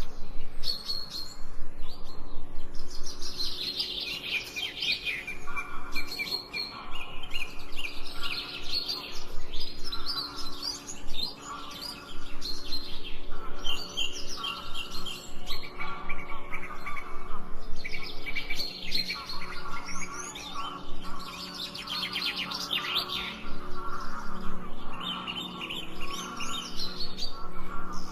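Several songbirds chirping and trilling in dense, overlapping bursts, over a steady low hum.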